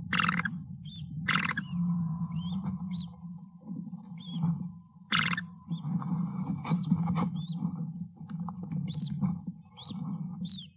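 American kestrel nest box: the female shifting on the nesting material while she feeds her newly hatched chick, with sharp scrapes against the box near the start, about a second and a half in and about five seconds in. Thin, high chirps come several times over a steady low hum.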